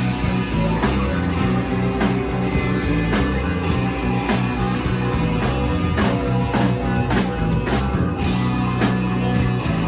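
Rock band playing live, an instrumental passage with no singing: a drum kit keeping a steady beat under heavy, sustained bass and guitar.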